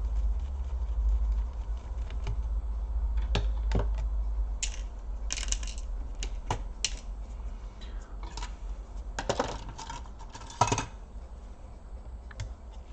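Small hard clicks, taps and a few short scrapes of plastic and metal parts being handled while a laptop's underside is worked on, over a low steady hum; the loudest knock comes near the end.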